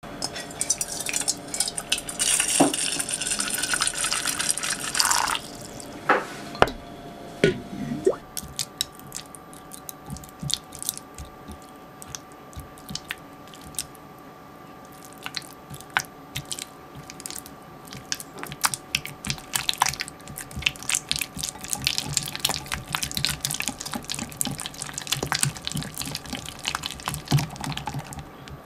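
A loud rushing hiss for about the first five seconds, then a silicone whisk stirring and scraping a soft cream-cheese mixture in a glass measuring jug, a long run of quick, irregular wet clicks and taps.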